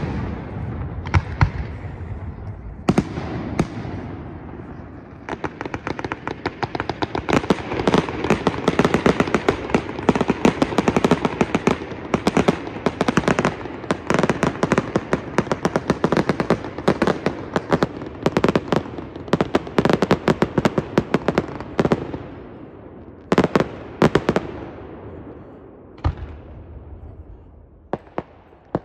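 Aerial fireworks display: a few separate shell bursts, then from about five seconds in a dense, rapid barrage of bangs lasting some fifteen seconds, thinning out to a few single loud booms near the end.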